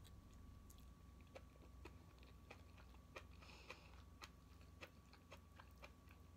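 Faint close-up chewing of crisp raw vegetables, with small crunches and clicks scattered irregularly, some from a metal spoon in the bowl.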